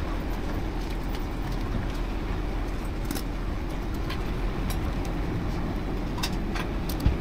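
Steady low hum of a kitchen fan or appliance, with a few faint clicks and scrapes of a knife against foil-lined pans as butter is spread over fish; the sharpest click comes near the end.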